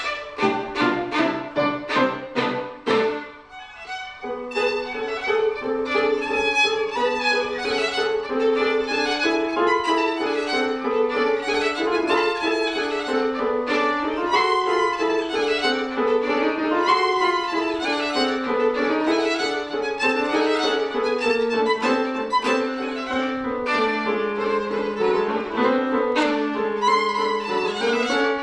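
Violin and grand piano playing together. In the first three seconds there is a run of short, sharply struck notes. After a brief drop, a long held note sounds over a lower melody that steps slowly up and down.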